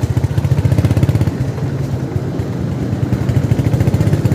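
Small motorcycle engine running steadily on the move, a fast, even low pulsing.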